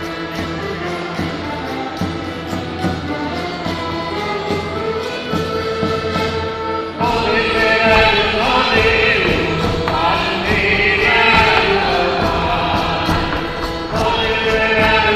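Portuguese folk ensemble with accordion playing an instrumental introduction; about seven seconds in, the group's voices come in singing over the accompaniment and the music gets louder.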